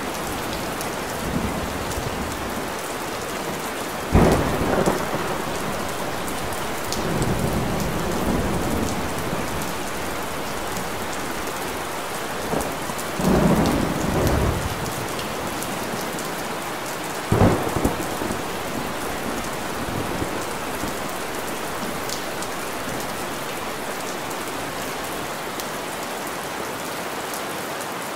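Steady heavy rain falling, with sudden louder low rumbling bursts about four, thirteen and seventeen seconds in, and softer swells between them.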